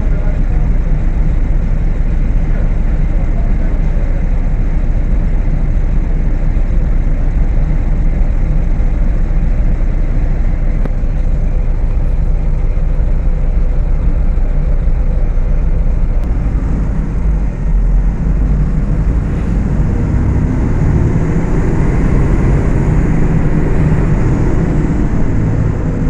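Diesel engine of a Volksbus 18.280 OTS city bus running while the bus drives, a steady low drone. It eases briefly about two-thirds of the way through, then grows louder and higher near the end.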